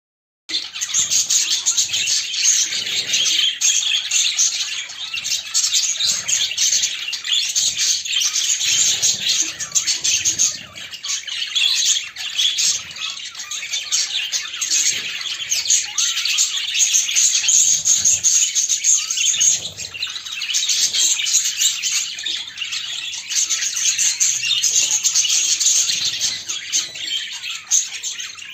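Budgerigars chirping and chattering continuously, a dense, high-pitched twittering with no pauses.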